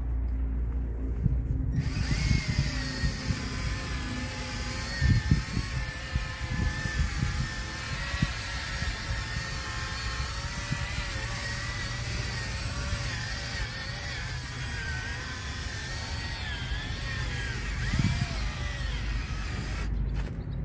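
Cordless drill spinning a foam buffing ball against a plastic headlight lens, polishing it with headlight-renewal polish. The motor's whine starts about two seconds in, wavers in pitch as the trigger and pressure change, and stops near the end.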